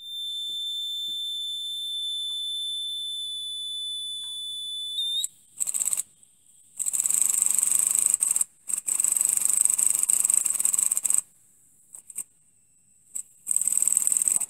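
A miniature three-cylinder steam engine running on compressed air at about 10 psi. First a steady high whistle of air lasts about five seconds. Then the engine runs in several short spells of fast, hissing exhaust, stopping and starting again as its Maudslay reversing lever is shifted between forward and reverse.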